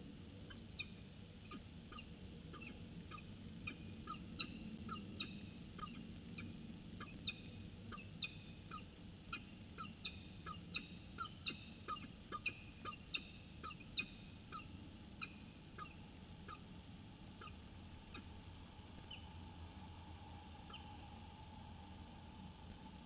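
Peregrine falcon calling: a long series of short, sharp, high notes, about two or three a second, growing louder toward the middle and then thinning out to a few scattered calls.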